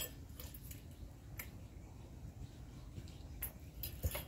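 A few scattered light clinks and taps of a ladle against a metal cooking pot and bowls as soup is served out, with three close together near the end.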